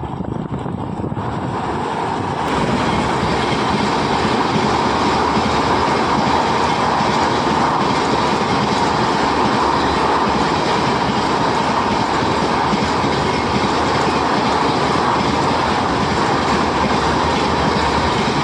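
Amrit Bharat Express train running at speed: a loud, steady rush of wheels on rails that builds over the first two or three seconds and then holds.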